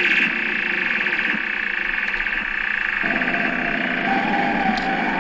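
littleBits Synth Kit modules playing a loud, buzzy electronic drone that pulses rapidly. About three seconds in, a lower tone comes in and slowly rises in pitch.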